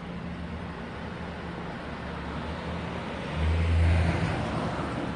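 Steady road traffic noise, an even rushing hiss. A low hum swells and grows louder for about a second past the middle.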